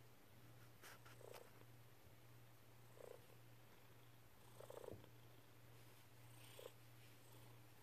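Domestic tabby-and-white cat purring softly and steadily while cuddled, with a few short chirpy sounds breaking in about four times.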